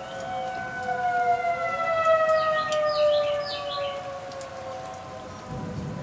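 Outdoor warning sirens wailing, several long tones sinking slowly in pitch, over steady rain. A bird gives a quick run of chirps about halfway through.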